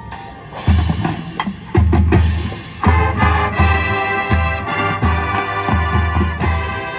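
High school marching band playing: bass drums and battery percussion hit in a steady driving pulse, and about three seconds in sustained wind chords come in over the drums and hold.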